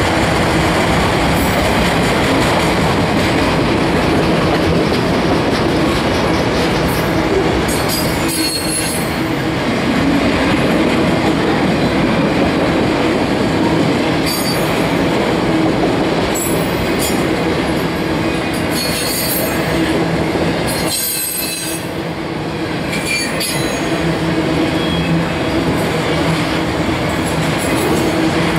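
Freight train of autorack cars rolling past: a steady, loud rumble of steel wheels on rail with some clickety-clack. Brief high-pitched wheel squeals break in several times.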